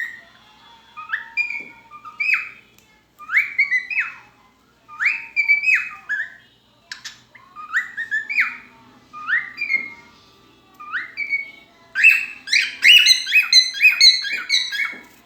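A pet bird singing loud whistled phrases: short runs of rising notes, repeated about once a second, with a faster burst of notes near the end.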